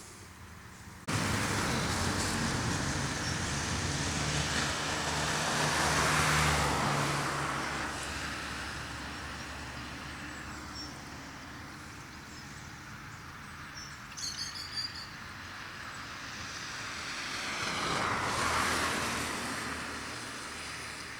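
Road traffic: vehicles passing by, the noise rising and fading twice as each one goes past.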